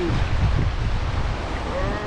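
Fast floodwater rushing through a white-water run, with wind buffeting the microphone in a deep, gusty rumble.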